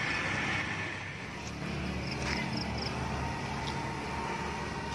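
Roadside outdoor ambience: a steady low rumble of road traffic, with a few faint high chirps.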